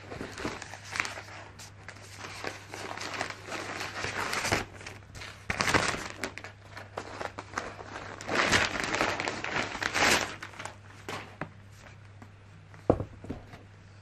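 Thin white wrapping sheet crinkling and rustling in irregular bursts as it is pulled off a laptop, loudest around six seconds in and again from about eight to ten seconds in. A single sharp knock near the end.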